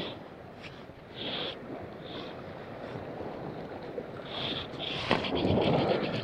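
Wind and water noise on a body-worn camera, with clothing rustling over the microphone and short swishes of fly line being stripped in through the angler's hand. The rustling and a run of small clicks grow louder about five seconds in.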